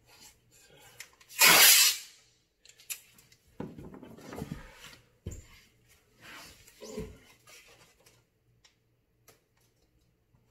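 Blue painter's tape pulled off the roll with one loud rasp about a second and a half in, followed by quieter rustling of the tape being handled and a couple of soft knocks.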